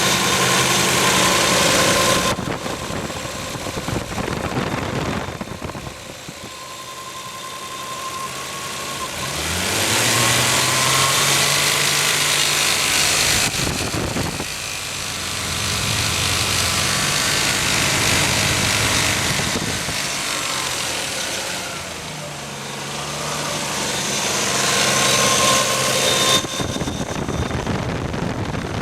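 Nissan RB26DETT twin-turbo straight-six in an R33 Skyline GT-R revved up and held several times, falling back between, with a rattle from the front of the engine that the owner puts down to either the head or the fan. The rattle keeps the same pitch whatever the revs but grows louder with them, and is only noticeable between 3,000 and 4,000 rpm.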